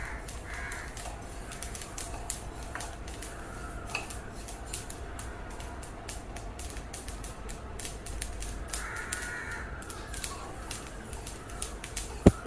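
Niger seeds crackling as they dry-roast in a steel kadhai, a steady patter of small pops: the 'tadtad' crackle that shows the seeds are roasting, like sesame. A crow caws a few times in the background, and near the end a metal slotted spoon strikes the pan once, loudly.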